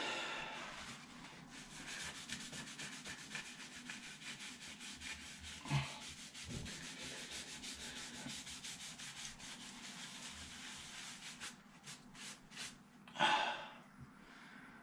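Alcohol-dampened paper towel rubbing back and forth on the skin of a forehead in quick strokes, scrubbing at dried blood around a healing cut. The rubbing stops about three-quarters of the way through, followed by a few faint ticks and a brief louder rustle.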